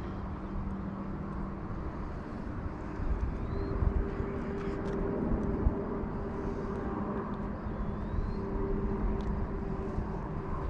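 Steady engine drone with a low rumble, its pitch shifting slightly, with a few faint clicks near the middle.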